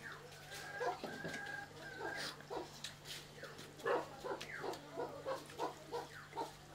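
Farm animal calls: a few high falling chirps early on, then a regular run of short repeated calls, about three a second, from about four seconds in.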